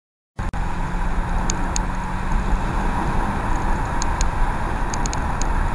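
Steady car driving noise picked up inside the cabin by a dashboard camera: engine and tyre noise on the road, starting abruptly about half a second in, with a few light ticks.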